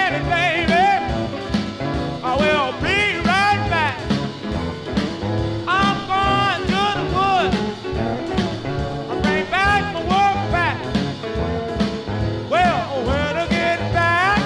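1957 rhythm-and-blues record played from a 45 rpm vinyl single: a band with a steady shuffling beat, and a lead line bending up and down in pitch in repeated phrases.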